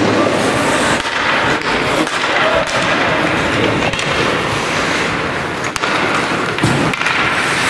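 Ice hockey game noise in an indoor rink: many quick clicks and knocks from sticks and puck over a steady hiss of skates on the ice, with voices in the background.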